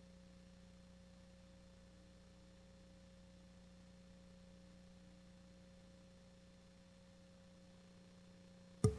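Faint, steady electrical hum of two unchanging tones, one low and one higher, from the broadcast audio feed. Near the end a sudden sharp click as the live room microphones are switched in, followed by faint room sound.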